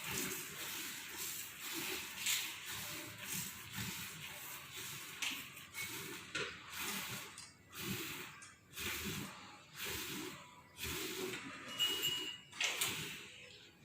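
Milk squirting into a bucket as a buffalo is milked, in quick rhythmic spraying strokes about two a second.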